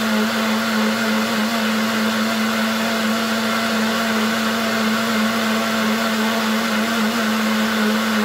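Cosmos CB-802 blender motor running steadily at one even pitch, its blade turning the jar's contents now that a new drive gear has replaced the worn one.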